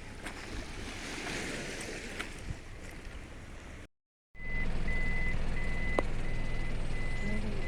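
Outdoor noise, then after a cut a vehicle's reversing alarm beeping steadily about twice a second over a low engine hum.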